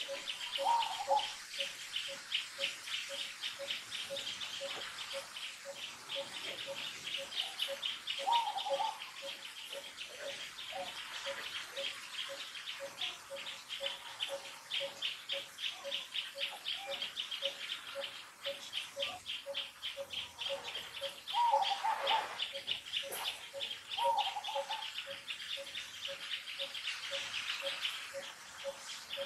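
Outdoor chorus of birds and insects: a fast, steady high trill of pulses and a low note repeated at an even pace throughout, with a few short calls now and then.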